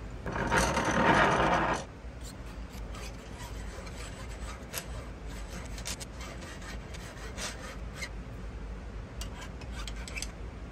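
A hand file scraping on a steel rod held in a bench vise: a loud stretch of scraping for about a second and a half near the start, then quieter, broken strokes with light clicks.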